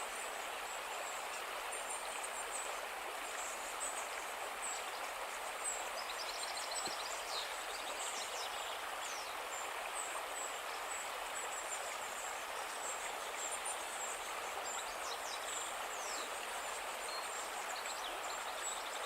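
A calm river flowing with a steady rush of water, while small birds chirp and trill in high, quick notes throughout.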